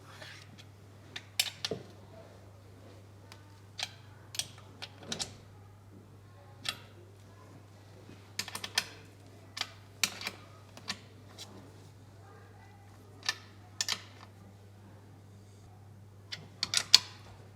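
Irregular metallic clicks and clinks of hand tools working the crankshaft bearing-cap nuts and bolts, some in quick little runs, over a steady low workshop hum.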